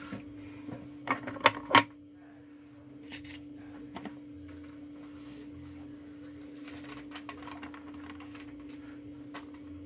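A quick run of sharp knocks or clatters about a second in, then scattered faint clicks, over a steady hum.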